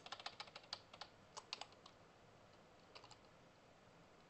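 Faint computer keyboard typing: a quick run of keystrokes over the first second and a half, then two or three more about three seconds in.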